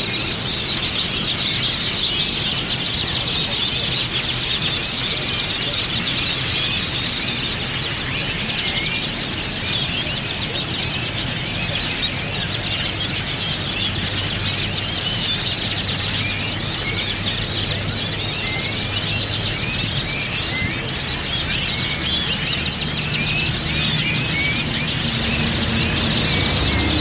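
A large flock of birds chirping and calling all at once in a dense, unbroken chorus of overlapping high chirps.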